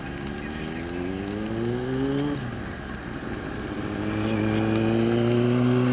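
A motor vehicle's engine accelerating, rising in pitch for about two seconds. It drops away about two seconds in, then pulls up again in a slower, louder rise.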